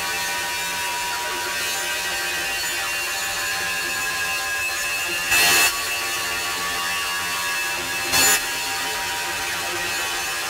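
Electronic feedback noise music: a steady, dense wash of hiss and many sustained whining tones, broken twice by short loud bursts of white noise, about five seconds in and again about eight seconds in.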